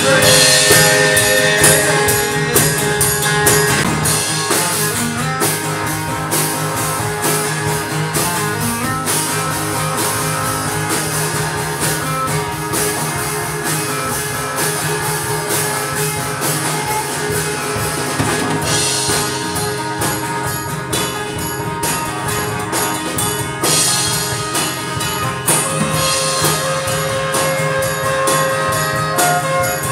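Live band playing an instrumental passage: acoustic guitar strummed steadily over a drum kit keeping the beat.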